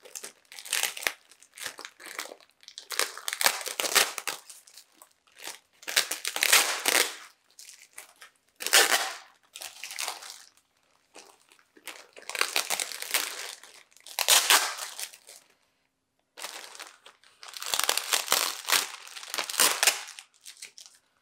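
Clear plastic zip-top bags crinkling and rustling in irregular bursts as they are handled and pulled open, with packing tape being peeled off them. There is a brief pause about three-quarters of the way through.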